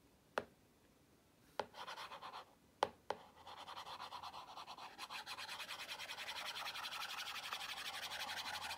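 Tip of a battery-powered capacitive touch pen tapping an iPad screen four times, then rubbed rapidly back and forth across the glass in fast scratchy strokes that grow louder toward the end, erasing part of a drawing.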